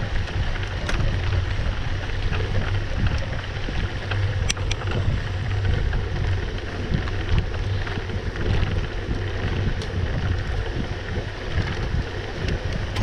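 Mountain bike rolling fast over a dirt road: steady low tyre rumble, with wind buffeting the camera's microphone and a few sharp rattles from the bike.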